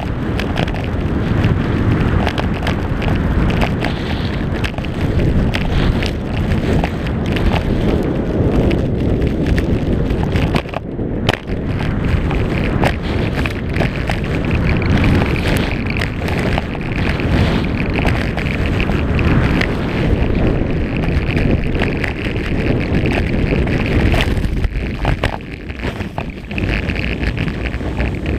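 Wind rushing over a GoPro's microphone during a fast ski descent, mixed with skis scraping and hissing over the snow. A dense, loud rumble with a brief lull about eleven seconds in.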